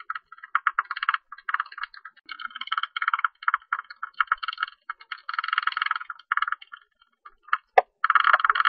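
Tube-nosed bat calls: rapid runs of scratchy clicking chatter in bursts, thinning out briefly about seven seconds in, with one sharp click before the runs pick up again.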